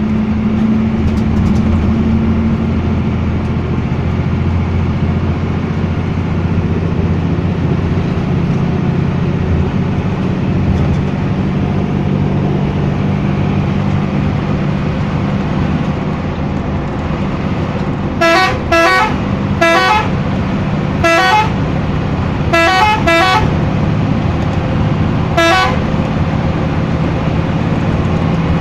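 A bus engine runs with a steady drone. In the second half a telolet multi-tone bus horn sounds in about seven short blasts, each a quick run of stepped tones.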